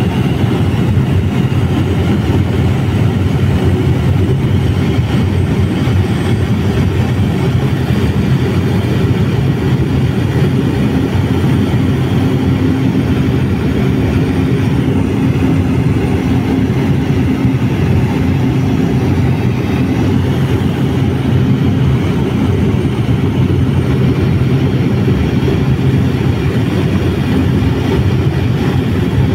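Steady, unbroken drone of an aircraft's engine and airflow, heard from inside the cabin and recorded on a phone, with a deep hum and a faint tone that comes and goes in the middle.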